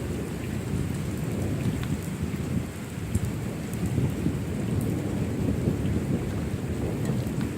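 Thunderstorm: steady rain with a continuous low rumble of thunder and scattered raindrop ticks, without a sharp crack.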